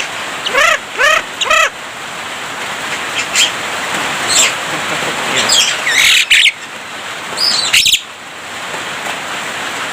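Javan myna singing: three quick repeated rising notes about half a second to a second and a half in, then a scattering of varied whistles and harsh squawks, over a steady hiss.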